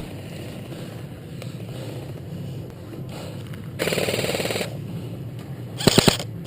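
Airsoft guns firing: a rapid full-auto burst lasting just under a second about four seconds in, then two short, loud bursts of three or four shots each near the end.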